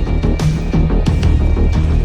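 Halloween background music: sustained deep bass notes under sharp percussion hits, with a thin steady high tone above.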